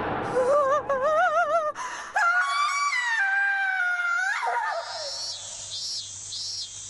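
A cartoon character's frightened scream, first wavering up and down, then held high and slowly falling for about two seconds before breaking off. After that, short high chirps repeat about twice a second.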